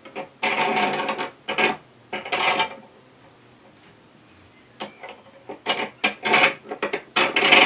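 Rasping, scraping strokes of the truing tool being slid back and forth across the Record Power WG200 grinding stone on its support bar. There is a run of strokes, then a pause of about two seconds, then more strokes.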